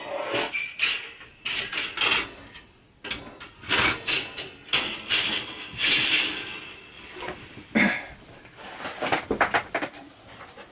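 Metal clinks, knocks and scrapes from an Aladdin Blue Flame kerosene heater's parts being handled while it is lit. The sharp irregular clatter is broken by a few short rushing scrapes.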